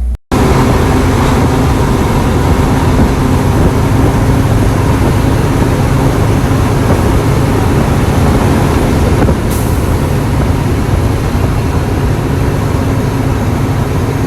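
Bucket truck engine running steadily, a loud low hum with a dense noisy haze over it, and a brief high hiss about nine and a half seconds in.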